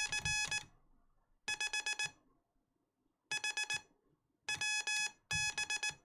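Morse code (CW) as a steady beeping tone keyed on and off in quick dits and dahs, in five short groups separated by pauses. It spells out a short abbreviated call to a station.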